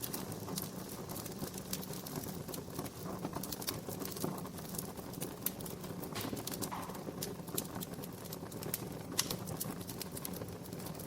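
Wood fire crackling, with irregular sharp pops and snaps over a steady low background.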